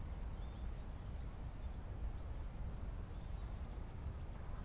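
Quiet hillside ambience: a light wind rumble, a steady high drone of crickets, and a few faint chirps.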